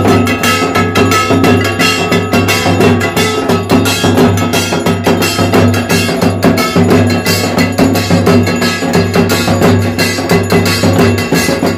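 Puja ritual percussion: a hand-held bell-metal gong (kansar) struck in a fast, steady rhythm, its metallic ringing running over a steady low drone.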